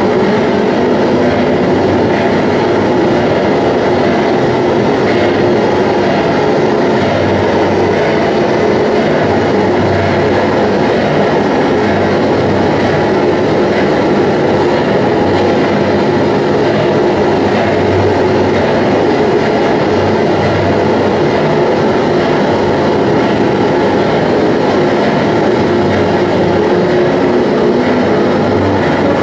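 Live power-electronics/industrial noise performance played through a PA: a loud, dense, unbroken wall of grinding electronic noise, with a low hum that swells and fades every few seconds, much like a train rumbling past.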